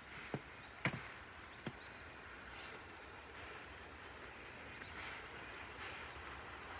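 Insects chirping in the fields: bursts of rapid, even pulsed trills over a steady high buzz, against a faint outdoor hiss, with a few sharp clicks in the first two seconds.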